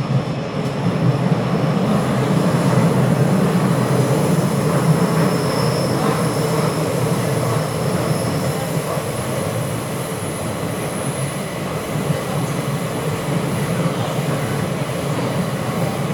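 Bucharest Metro train running in a tunnel, heard from inside the carriage: a steady rumble of wheels and running gear, growing louder over the first two seconds, with a faint high whine on top.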